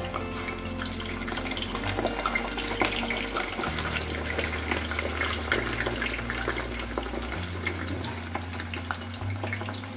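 Hot cooking oil sizzling and crackling steadily as food fries, with many small sharp pops.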